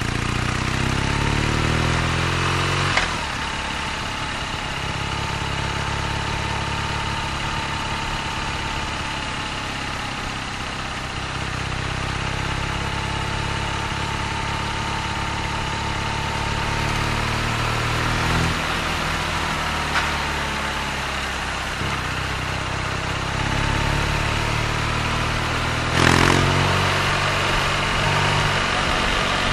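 BMW R nineT's 1170 cc boxer twin engine running under way, its note climbing three times as the bike accelerates, with a short break at the top of each climb, over road and wind noise.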